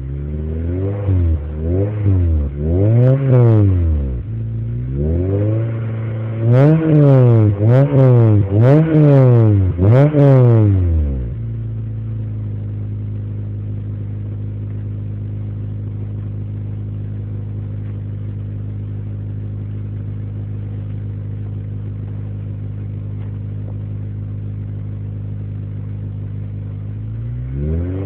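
Honda Civic Type R engine heard at the tailpipe of an Invidia G200 exhaust. It takes a series of quick throttle blips for the first eleven seconds or so, each rising and falling, then drops to a steady idle, and the revving starts again near the end.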